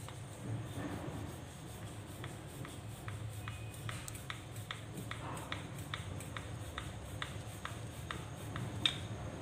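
Wooden rolling pin rolling out a thin besan roti on a silicone mat: soft rubbing with short, light clicks about three a second from a couple of seconds in, over a steady low hum.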